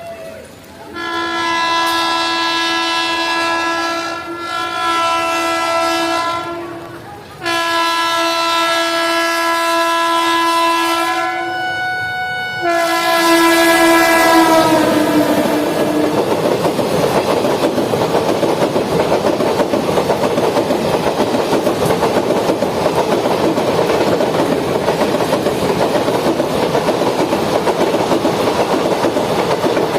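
Indian Railways express train sounding three long blasts on its horn as it approaches, the last one dropping in pitch as the locomotive passes. Then its coaches rush past at speed with a steady, loud clatter of wheels on the rail joints.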